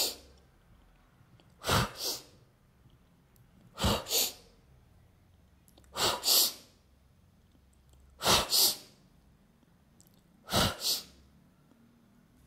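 Sharp breaths blown into a handheld microphone: six forceful puffs of breath noise about two seconds apart, each a quick double puff.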